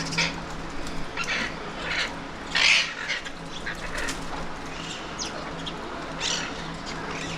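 Alexandrine parakeets giving short, harsh squawks, about seven calls spread through, the loudest about two and a half seconds in, over a low steady hum.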